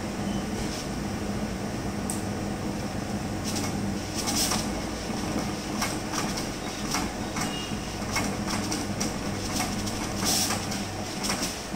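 Large-format printer running while it prints, with a steady motor hum and short swishing clicks at irregular intervals as the print head sweeps and the sheet feeds through.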